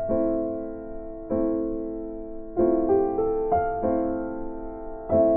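Background music: slow piano chords, a new one about every second and a quarter, each ringing and fading.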